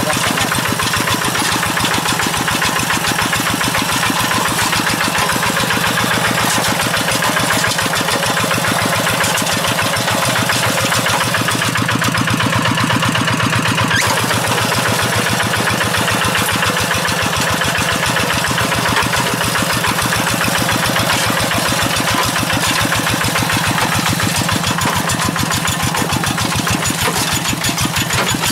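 Kubota RD85Di2S single-cylinder diesel engine on a Quick G1000 two-wheel hand tractor, running steadily with a rapid, even beat.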